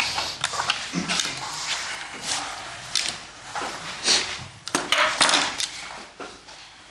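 Irregular small knocks, clicks and rustles of people handling things at desks.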